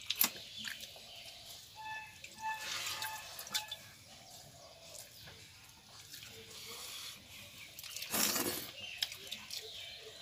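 Hand stirring and scooping watery rice (pakhal) in a brass bowl, with wet dripping sounds and light clicks against metal bowls. A few short high chirps come about two seconds in, and a brief hiss, the loudest sound, comes near the end.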